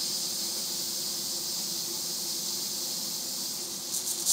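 Butane hissing steadily as a small burner gas tank is filled from an upturned refill canister pressed onto its refill adapter, with a faint squealing tone under the hiss. The hiss grows louder in a short spurt near the end as the canister is eased off.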